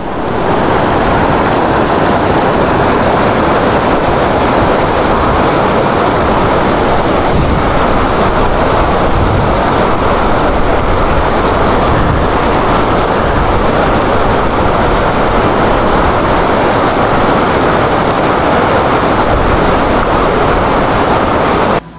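Fast mountain stream rushing over rocks in loud, steady whitewater close by; the sound cuts off suddenly just before the end.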